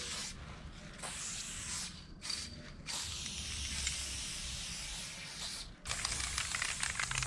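Aerosol spray paint can spraying in several long hissing bursts, with short breaks between them as the nozzle is released and pressed again.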